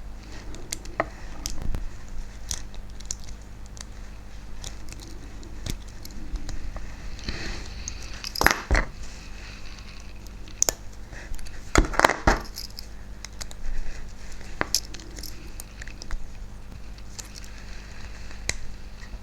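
Scattered clicks and taps of small tools and tiny model-locomotive parts being handled during dismantling, the loudest clusters about eight and twelve seconds in, over a steady low hum.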